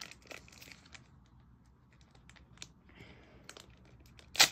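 Foil Pokémon booster pack being struggled with by hand: faint scattered clicks and crinkles, then one sharp, loud rip near the end as the wrapper finally tears open.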